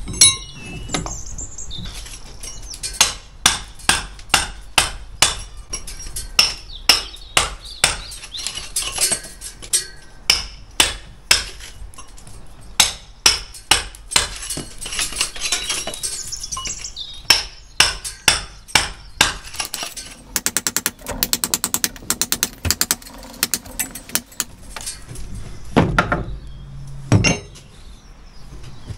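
Hammer striking a steel chisel into brickwork, cutting out bricks and mortar over a window to open up the wall for a lintel. Sharp metallic blows come steadily, one or two a second, then a quick run of rapid light taps, and two heavier knocks near the end.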